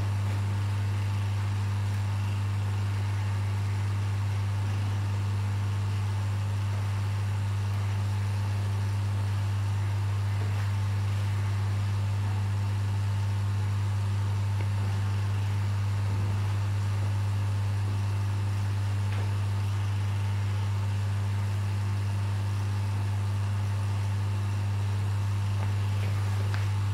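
Steady, unchanging low hum from the aquarium's running pump and filtration equipment: one deep tone with a fainter overtone above it, over a faint even hiss.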